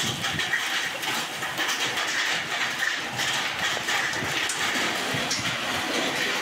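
Hail and heavy rain pelting down: a dense, steady clatter of many small hailstones striking the ground and surfaces.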